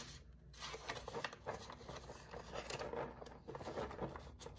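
Canadian polymer banknotes and a clear plastic binder envelope being handled by hand: a steady run of rustling and small scraping sounds as bills are slid into the pocket.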